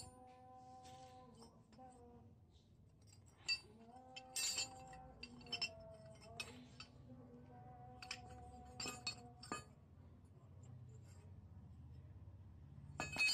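Rusty steel open-ended spanners clinking against one another as they are handled and stacked, a scattering of sharp metallic clinks with a quick cluster near the end.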